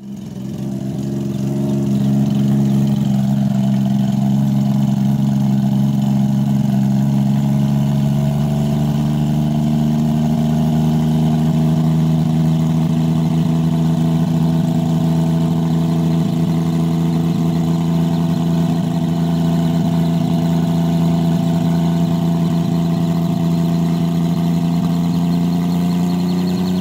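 MH-1 helicopter's engine and main rotor running at a steady high RPM, held steady for blade tracking. The pitch creeps up slowly and rises more clearly near the end.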